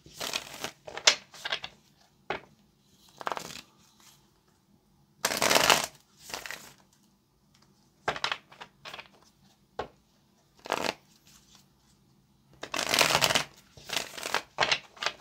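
A tarot deck shuffled by hand: uneven bursts of cards sliding and slapping together, with short taps in between and brief quiet gaps. The loudest bursts come about five seconds in and near the end.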